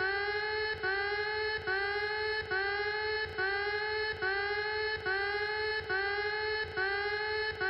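Electronic emergency alert alarm tone: a buzzy pitched beep that repeats evenly a little more than once a second, each beep scooping up in pitch at its start and then holding steady.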